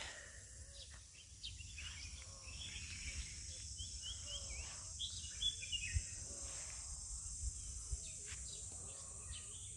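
Faint birdsong: short chirps come and go, thickest a few seconds in, over a steady high-pitched buzz of crickets or similar insects.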